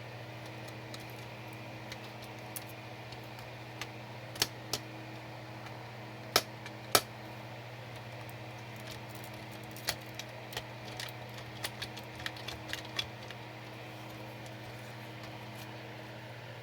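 LEGO Technic animatronic dog's electric motor humming steadily while its plastic mechanism gives sharp clicks and taps: scattered single clicks, two louder ones about six and seven seconds in, then a quick run of clicks between about ten and thirteen seconds in.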